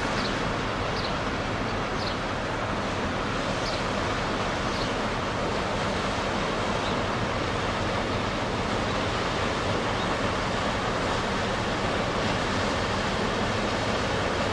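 Steady rush of water from a passing motor cargo barge's bow wave over the low drone of its diesel engine. A few faint high chirps come in the first half.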